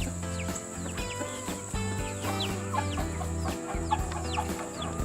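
Chickens clucking and chirping, with short high falling peeps repeating throughout, over background music.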